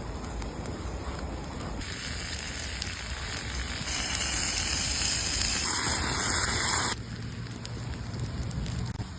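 Food sizzling in a pan over a campfire, with scattered crackles from the fire. A hissing sizzle starts about two seconds in, grows louder about four seconds in, and cuts off abruptly near seven seconds.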